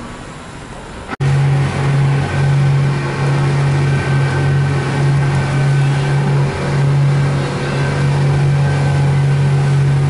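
Glass-bottom boat's engine running steadily at speed, a deep drone heard from inside the cabin over the rush of water past the hull. It cuts in suddenly about a second in, after a quieter hum.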